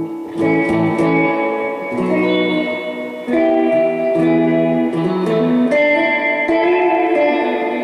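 Electric guitar played through a Gomez El Sonido 50-watt Bassman-clone tube amp with a Nocturne F-Bomb 63 reverb unit: a line of picked, ringing notes and chords, changing every half second or so, with spring reverb on the tone.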